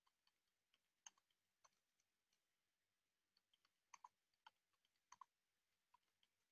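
Very faint computer keyboard keystrokes: scattered, irregular light clicks, with small clusters about four and five seconds in.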